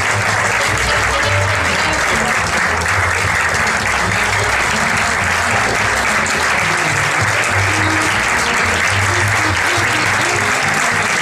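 Audience clapping steadily, with music and a pulsing bass line playing underneath.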